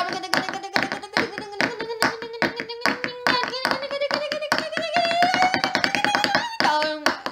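Home-made song intro: quick, uneven hand taps or claps with a long held sung note that slides slowly upward, then drops back lower near the end.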